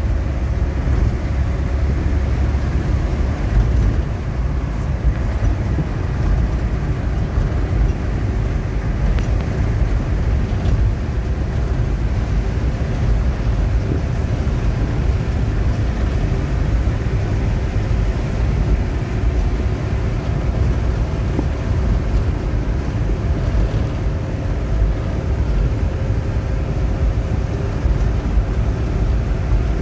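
Truck engine and road noise heard inside the cab while driving at steady speed: a continuous low rumble with a faint steady hum.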